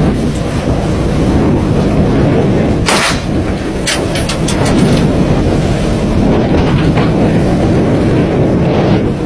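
A patrol boat running fast through the sea: a steady rumble of engine, rushing water and wind on the microphone. A single sharp bang comes about three seconds in, followed by a few quick clicks.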